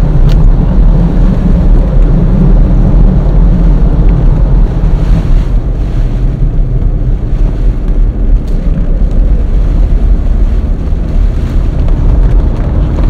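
Hurricane wind buffeting the microphone: a loud, steady low rumble, mixed with the engine and road noise of the vehicle driving through the storm.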